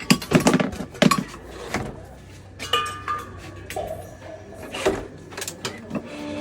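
Irregular knocks and clinks of metal being handled, with a few brief squeaky tones.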